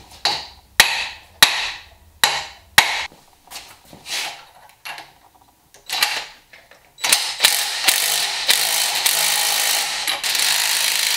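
Cordless impact driver running the upper ball joint's threaded insert down into a Dana 44 steering knuckle. It gives a string of short bursts, then a continuous hammering run from about seven seconds in as the insert begins to take torque.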